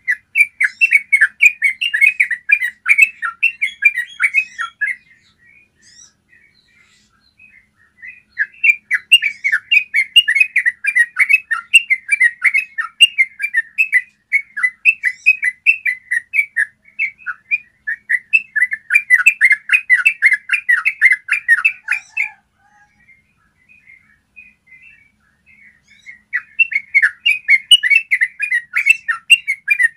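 Yellow-vented bulbul singing long, rapid rolling phrases of clear chattering notes, in four bouts with short pauses between them.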